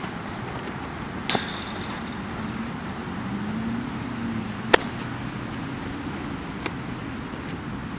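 A softball pops into a leather catcher's mitt about a second in. A louder, sharp smack follows about three and a half seconds later, after the throw, with a faint click near the end. Under it runs a steady outdoor background with a low hum of passing traffic.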